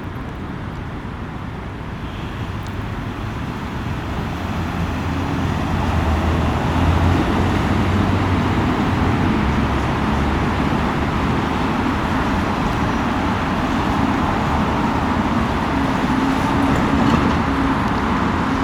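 Street traffic with a heavy engine rumbling close by, growing louder about five seconds in and then holding steady.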